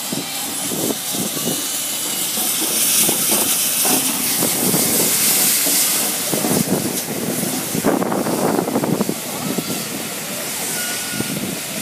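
Steam locomotive passing slowly at close range: a loud steady hiss of steam, with irregular low rumbling from the engine and wheels that swells for a few seconds past the middle.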